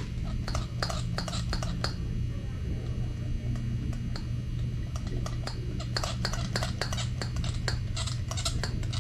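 Quick irregular light clicks and clinks from oiling the cam journals and cam followers of an aluminium cylinder head with a squirt bottle of engine oil, over a steady low hum.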